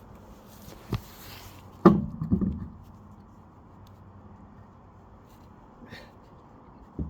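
A car wheel being handled into place: a sharp knock about a second in, then a heavy thud just before two seconds followed by two smaller knocks, and a faint click near the end.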